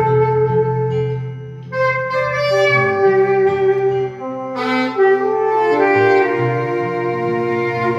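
Saxophone playing a slow melody in long held notes over sustained keyboard and bass-guitar backing from a small band, in a slow Korean trot ballad.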